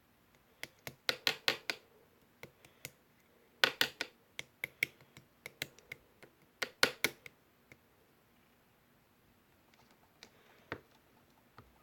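Slime being squeezed and pressed by hand, giving clusters of sharp popping clicks for the first several seconds, then a few scattered pops near the end.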